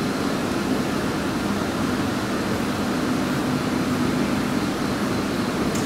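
Steady background hum and hiss, like a fan or air conditioner running, with no distinct handling sounds standing out.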